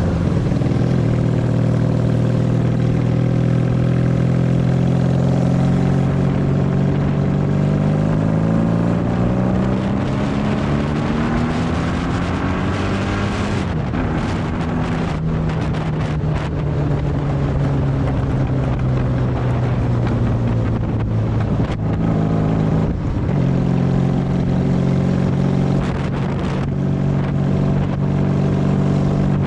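Honda Magna VF750's V4 engine pulling the bike along. Its note climbs steadily for several seconds under acceleration, drops sharply about halfway through as the revs fall, then runs fairly evenly, with a brief break in the note a little before the end.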